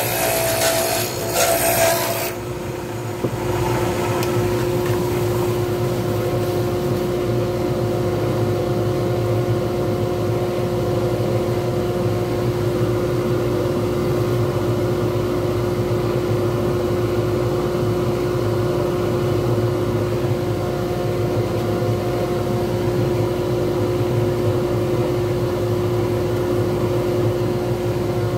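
Wood lathe spinning a grapevine and copper leaf pen blank: a gouge cuts it with a rough scraping for about two seconds, then the lathe motor runs on with a steady hum and no cutting.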